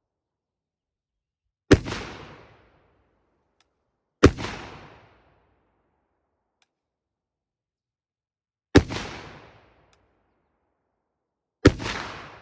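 7.62x39 Interarms Radom pistol firing four single shots at uneven intervals: one about two seconds in, then at roughly 2.5, 4.5 and 3 second gaps. Each crack is followed by a short echo that dies away within about a second.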